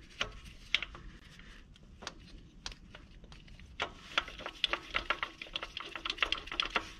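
Light metal clicks and taps from the new serpentine belt tensioner and its 12 mm bolt being fitted by hand onto the engine. The clicks are scattered at first and come quicker and closer together from about four seconds in.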